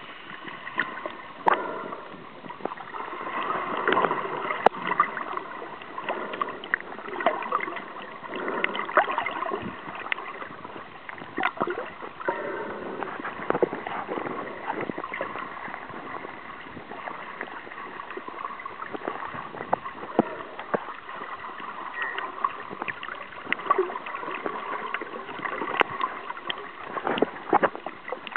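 Water sloshing and gurgling around a snorkeler's camera, with frequent irregular clicks and crackles and a few louder pops.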